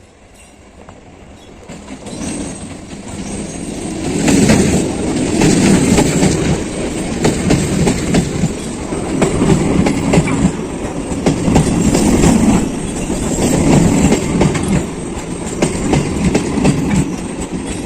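Suburban EMU (electric multiple unit) local train running into the station. Its rumble builds over the first four seconds, then the wheels clatter over the rail joints in regular surges about every two seconds as the coaches go by.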